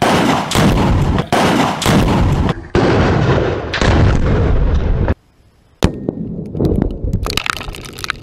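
Tannerite explosions: loud booms with heavy rumble, several spliced one after another for about five seconds. After a brief gap comes a sharp crack, then crackling bangs.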